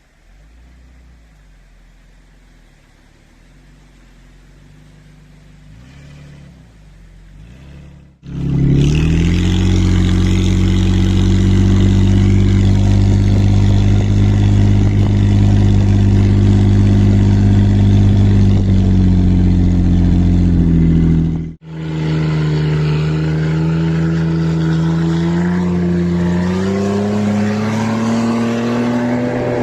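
Nissan Pathfinder V6 engine and stock exhaust, quiet and low at first. About eight seconds in it jumps to a loud, steady engine note held at one pitch. After a momentary break about two-thirds through, the note climbs in pitch near the end.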